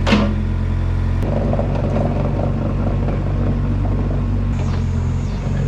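The engine of a bucket-equipped machine running steadily while its rebuilt hydraulic cylinder is tested for leaks. The sound shifts about a second in and again near the end, as the load on the engine changes.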